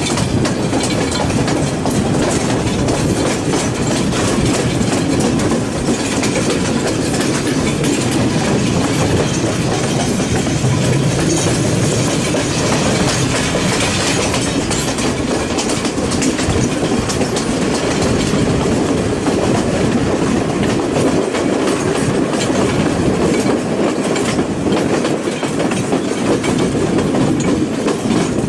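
A passenger train running along the track, heard from aboard: a steady rumble of wheels on rail with the repeated clack of rail joints.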